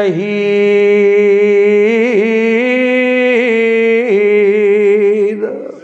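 A man's voice chanting a Quranic verse in melodic tajweed recitation, drawing out one long note with small trills and pitch turns, stepping up slightly about two seconds in and back down about four seconds in, before breaking off near the end.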